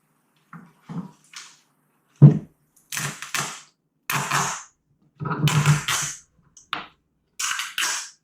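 A run of about six short crunching and scraping noises, with one sharp loud crack about two seconds in, as the paddle's edge and skin are pried up from its Nomex honeycomb core.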